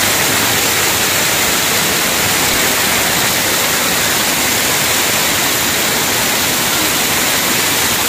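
Small waterfall pouring over rocks close by: a loud, steady rush of falling and splashing water.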